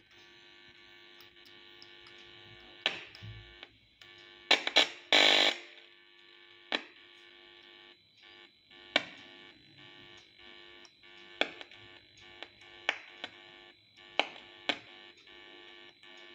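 A TV speaker giving out a steady electrical buzz, with sharp irregular clicks and crackles and a louder burst of buzz about five seconds in, as points on the LG TV's audio circuit are touched while tracing where the audio signal reaches the amplifier.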